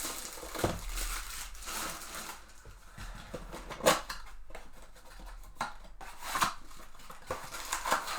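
Trading card packs and their wrappers being handled and opened: crinkling and rustling with irregular light clicks and card slides, and a sharper snap about four seconds in.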